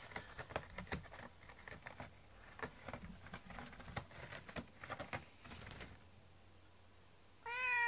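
A cat's paws and claws tick and scratch irregularly on a corrugated cardboard scratcher as it walks on it, with a brief jingle of its metal collar tag about five and a half seconds in. Near the end the cat gives one meow, falling slightly in pitch, the loudest sound here.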